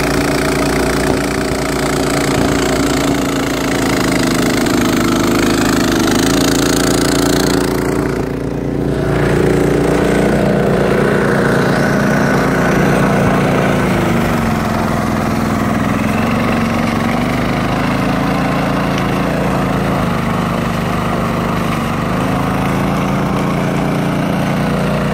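Honda HS970 two-stage snowblower's single-cylinder four-stroke engine running steadily while it throws snow, with a rushing hiss over the engine note. The sound briefly dips about eight seconds in, then runs on with its pitch wavering slightly.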